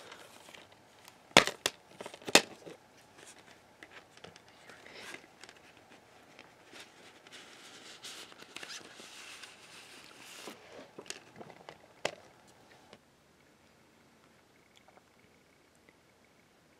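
Plastic DVD case snapping open with a few sharp clicks, then the folded paper insert rustling and crinkling as it is pulled out and unfolded, for about ten seconds.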